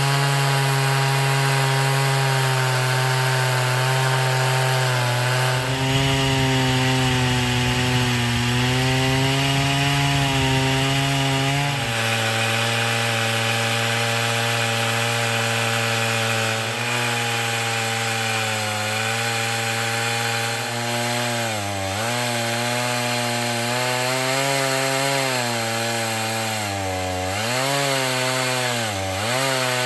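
Two-stroke chainsaw running at full throttle in an Alaskan chainsaw mill, ripping a board lengthwise from a log. The engine note holds steady, then sags briefly several times in the last third as the saw bogs under the cut.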